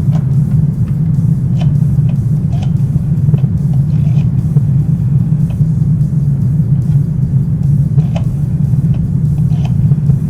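Chimney fire burning in the flue: a steady low rush with scattered sharp crackles.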